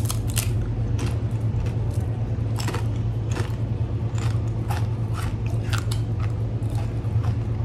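A person biting into and chewing jalapeño potato chips: a string of irregular, crisp crunches over a steady low hum.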